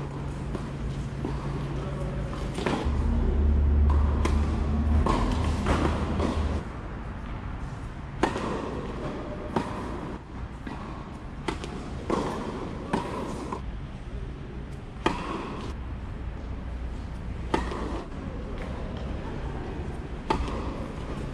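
Tennis ball struck with rackets and bouncing on the court: sharp single knocks every second or two, as in a rally. A low rumble runs for a few seconds from about three seconds in.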